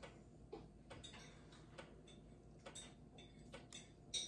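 Near silence: quiet room tone with a few faint, short clicks at uneven intervals.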